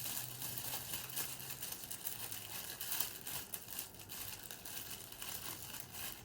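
Plastic packaging crinkling and rustling in irregular crackles as a fidget toy is unwrapped by hand.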